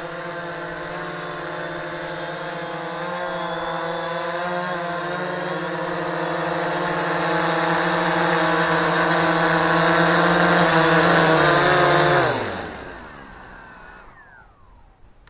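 DJI Phantom 3 quadcopter's motors and propellers humming in flight, a steady pitched buzz that grows gradually louder, then spinning down with a steeply falling pitch about twelve seconds in as the motors stop.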